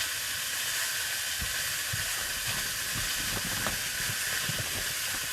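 Sausages frying in a pan: a steady sizzling hiss with faint scattered crackles.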